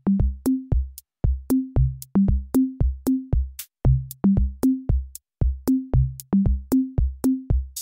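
Background music: an electronic drum-machine beat of deep thumps, each with a sharp click on top, about four a second with a few short breaks, and no melody over it.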